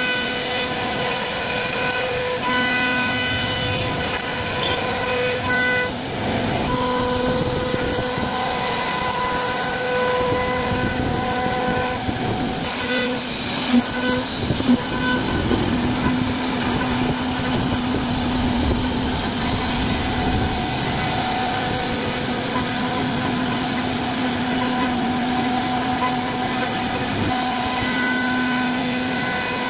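CNC wood-carving router running steadily, its spindle giving a pitched whine over the noise of the bit cutting wood, with a few sharp knocks about halfway through.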